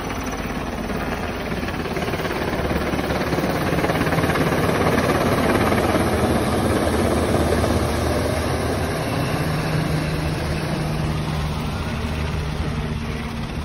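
Black Hawk helicopter flying low overhead, a steady rotor and twin-turbine engine noise that grows louder as it passes over about midway, then eases off.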